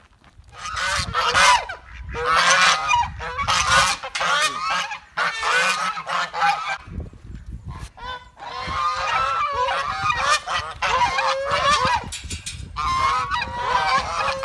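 A flock of geese honking, many calls overlapping, in loud bouts with short pauses between them.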